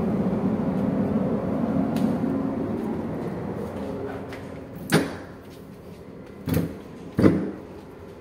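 Wind and a low steady hum on a ship's open deck, fading away in the first half as the doorway is passed; then three sharp door clunks, the last two close together.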